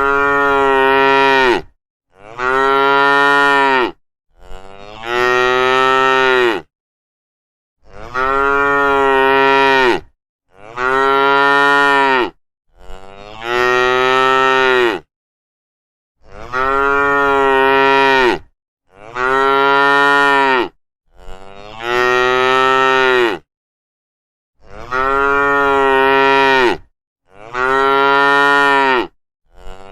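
Cows mooing: about a dozen long, loud moos of roughly two seconds each, one after another with short silent gaps between them.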